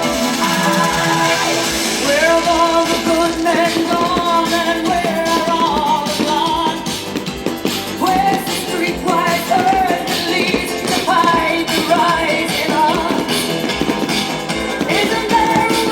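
Music with a singing voice over a steady band.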